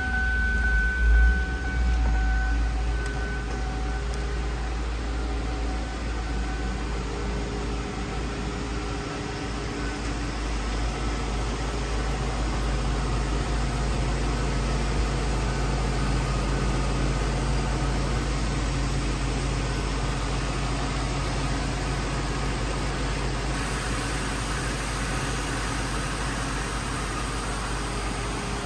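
2002 Ford Thunderbird's 3.9-litre V8 idling steadily. A high steady tone fades out over the first few seconds. Near the end the sound turns brighter and hissier.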